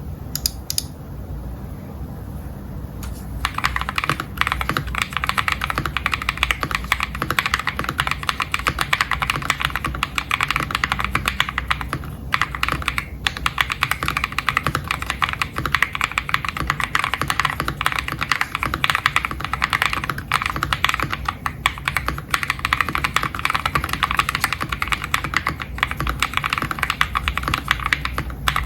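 Fast continuous typing on a CIY GAS67 gasket-mount mechanical keyboard with lubed Akko Matcha Green switches, XDA keycaps, a PC plate and foam and tape-mod dampening. It starts a few seconds in and pauses briefly a few times.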